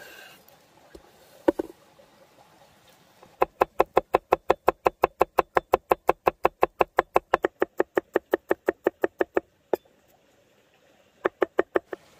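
A large chef's knife thinly slicing garlic, its blade tapping a wooden cutting board in a quick, even run of about six strokes a second for roughly six seconds. There is a single knock before the run, and a few more strokes near the end.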